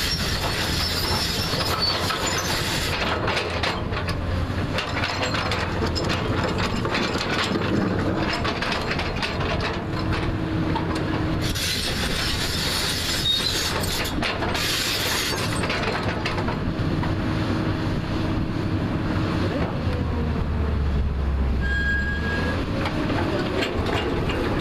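JCB backhoe loader working: its diesel engine running steadily under load, with hydraulic whine and the bucket scraping and clanking against earth and rock. The scraping is loudest near the start and again about halfway through.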